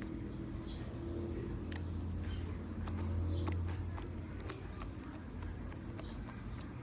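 Green slime being squished and kneaded by hand, giving a string of small, irregular wet clicks and pops over a low steady hum.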